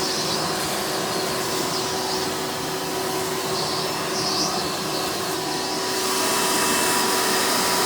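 Hoover Futura Elite direct-air upright vacuum running in tool mode, its motor-fan drawing air through the hose with a steady whine and hum. It gets slightly louder about six seconds in.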